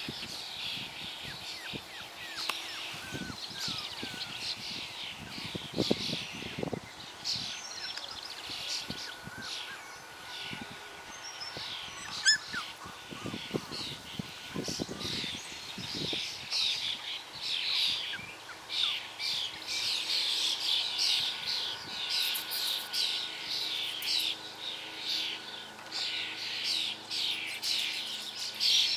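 Songbirds chirping, many short rapid calls overlapping, growing busier about two-thirds of the way through.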